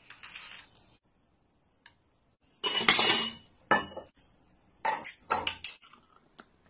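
Short bursts of tableware handling: fries sliding off a plate onto a slate board at the start, then clatter and sharp clinks of dishware and glass, and a glass beer bottle being opened, with the loudest clatter about three seconds in and a quick cluster of clinks about five seconds in.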